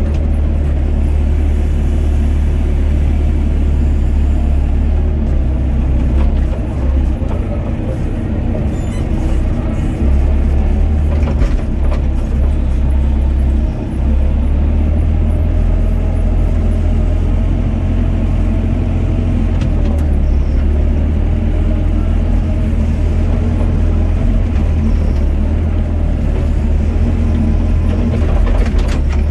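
Doosan DX55 mini excavator's diesel engine running under load while the arm and bucket dig, heard from the operator's seat: a steady deep drone that dips briefly a couple of times.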